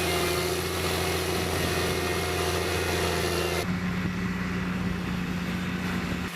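Diesel engine of a heavy earthmoving machine running steadily, with an even hum and hiss. About two-thirds of the way through, the sound changes abruptly: the hiss drops away and a steadier, lower engine hum remains.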